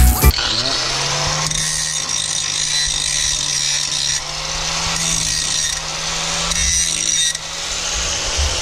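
Makita angle grinder running and grinding metal off the edge of a rear brake caliper to clear the wheel. The grinding swells and eases a few times as the disc is pressed on and lifted off over a steady motor whine.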